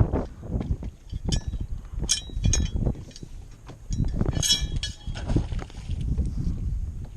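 Gear knocking and clinking on a small fishing boat: a few sharp metallic clinks with a brief ring, loudest about four and a half seconds in, over wind rumbling on the microphone.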